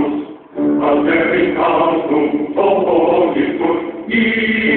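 Voices singing together in short phrases, with a brief break about half a second in.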